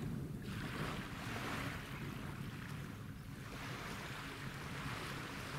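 Small waves washing in, a hiss that swells and fades every two or three seconds, over a low rumble of wind on the microphone and a faint steady low hum.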